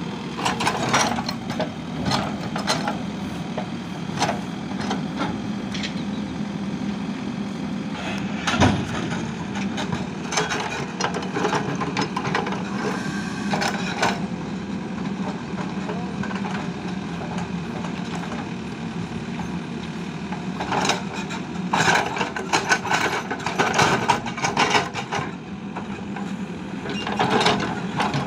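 Mahindra Earthmaster SX backhoe loader's diesel engine running steadily while the backhoe digs, with repeated bursts of stones and soil scraping and clattering against the bucket.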